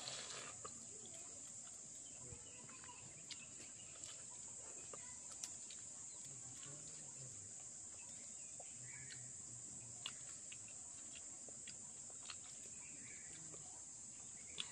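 Steady high-pitched insect drone, as of crickets chirring, with a few faint scattered clicks.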